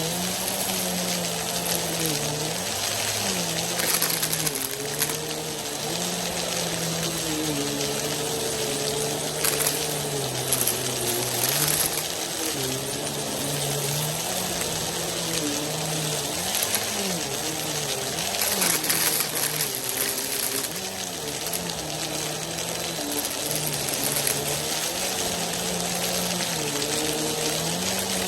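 Vacuum cleaner running with its brushroll spinning, the motor hum wavering in pitch as it is worked over the floor, with several bursts of rattling clatter as dry rice, macaroni and beans are sucked up.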